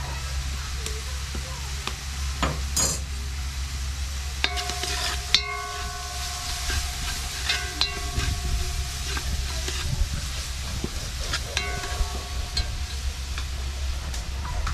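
A spoon stirring and scraping in a metal cooking pot of seasonings simmering in oil. Its clinks set the pot ringing briefly several times, over a light sizzle and a steady low hum.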